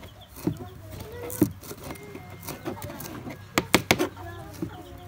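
Kitchen knives chopping tomatoes and cilantro on a plastic cutting board: irregular sharp knocks, with a quick run of three about three and a half seconds in. Hens cluck in the background.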